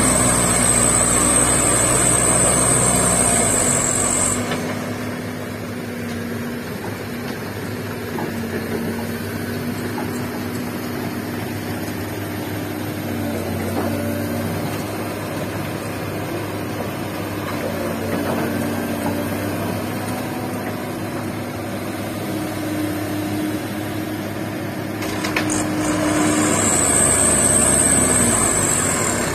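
Diesel engine of a loaded Mitsubishi Canter dump truck driving off over a gravel track, its pitch rising and falling several times as it pulls and changes gear. At the start and again near the end, a Komatsu PC200-6 excavator's engine runs louder, with a high steady whine over it.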